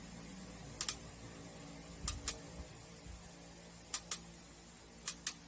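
Push buttons on the coffee grinder's control panel being pressed while the grind time is set: four double clicks, a press and release each, spaced about a second apart, over a faint steady hum.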